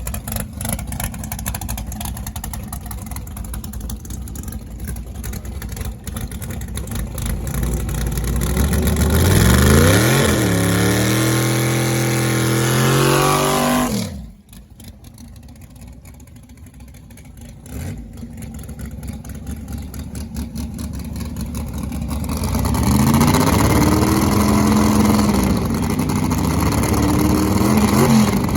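Big-block Chevy V8 in a C10 pickup on a 100-shot of nitrous, rumbling, then accelerating hard with rising pitch from about nine seconds. It cuts off abruptly around fourteen seconds. An engine runs up again in the last several seconds.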